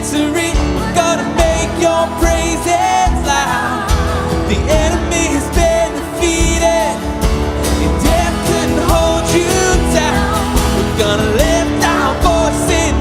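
Live worship band playing an upbeat song, with a drum beat, bass, guitars and piano, and voices singing over it.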